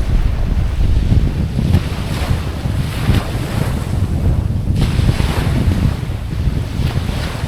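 Ocean waves washing in, the surf hiss swelling twice, with heavy wind buffeting the microphone as a constant low rumble.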